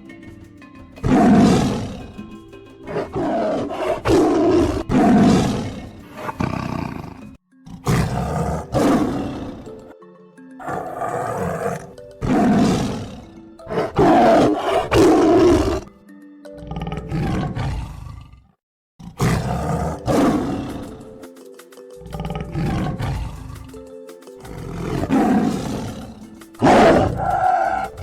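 A run of about a dozen different wild animal calls, one after another, each a second or two long, with roars among them, over background music.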